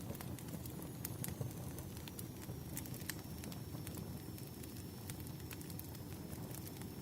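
Wood campfire burning: a steady low rush of flame with irregular sharp crackles and pops from the burning wood.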